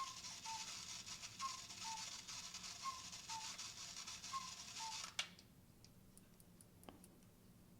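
Black Forest cuckoo clock with a Regula 25 movement calling "cuckoo" four times to strike four o'clock. Each call is a high note followed by a lower one, the calls about a second and a half apart. The calls stop with a click about five seconds in. The strike train now runs properly after the gear pin was remeshed against its stop plate.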